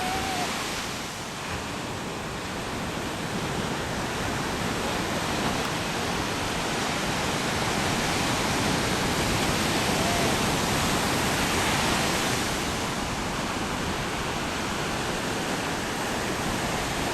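Steady rushing noise of ocean surf, an even wash of sound that swells slightly around the middle.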